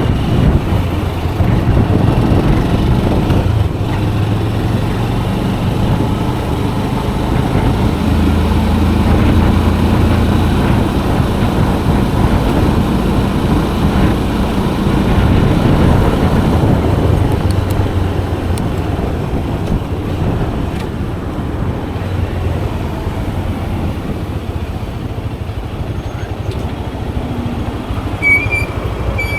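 Motorcycle engine running under way, its hum rising and falling with speed over steady road and wind noise. Two short high beeps sound near the end.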